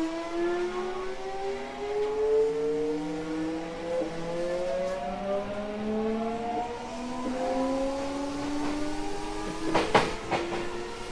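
Mitsubishi GTO VVVF inverter and traction motors of an Odakyu 1000 series train whining as it accelerates, several tones rising together in pitch. A short clatter from the wheels about ten seconds in.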